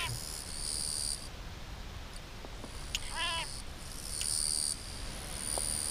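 A frog seized by a grass snake gives one short distress scream about three seconds in. Insects chirr in bursts that start and stop throughout.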